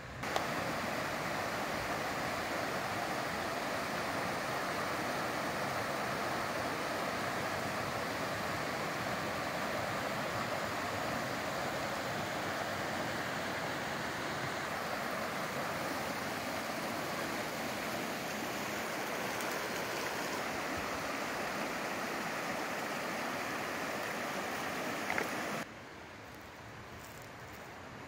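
Mountain stream rushing over rocks as white water, a steady rush of water. Near the end it drops abruptly to a much fainter rush.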